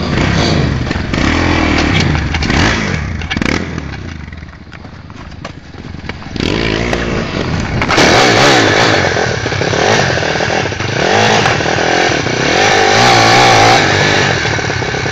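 Several pit bike engines idling and revving together, their revs rising and falling. The sound drops back for a couple of seconds in the middle, then comes back louder with more engines revving over one another.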